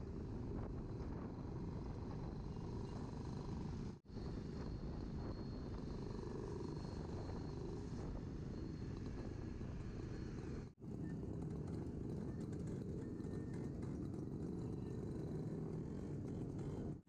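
Motorcycle engine running steadily on the move, with wind rushing over the microphone. The sound cuts out for an instant twice, about four and eleven seconds in.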